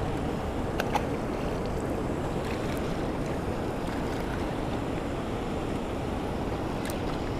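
Steady rush of water pouring over a concrete spillway and churning in the pool below, with a few faint clicks.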